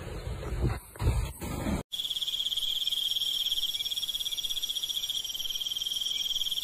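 Low rumble of handling and wind on a handheld phone microphone, cut off abruptly about two seconds in. Then an animal chorus: a steady high-pitched trill, pulsing rapidly and evenly.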